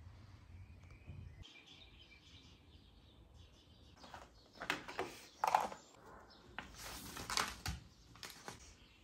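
Soft rustling and tapping of things handled on a desk, including the paper pages of an open book, in two short clusters about halfway through.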